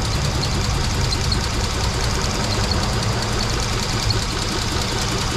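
2003 Mitsubishi four-cylinder engine idling rough and uneven with a heavy misfire, described as only two of its four cylinders working, with a faint quick ticking over the rumble.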